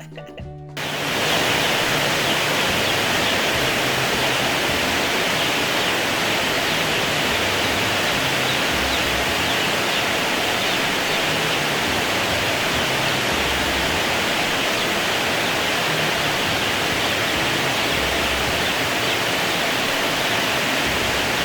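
Rain falling on the roof, a loud, steady hiss that sets in suddenly about a second in.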